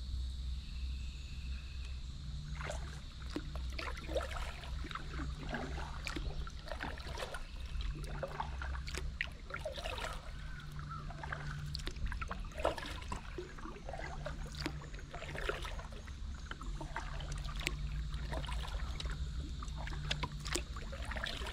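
Paddle strokes moving a Moken 12.5 V2 kayak along a river: irregular small splashes, with water dripping and trickling, starting about two seconds in and going on in a loose rhythm.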